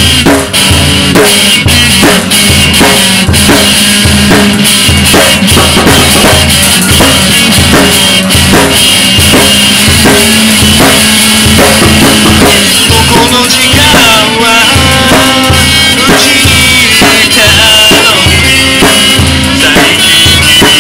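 Pop song music: a drum kit keeping a steady beat of bass drum and snare, under bass and other instruments.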